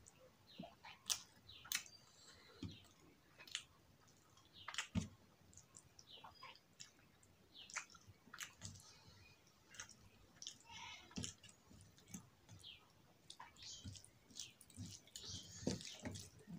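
Close-up eating sounds by hand: chewing and mouth clicks from rice and potato curry, and fingers mixing rice on a steel plate. A steady run of irregular short, sharp clicks.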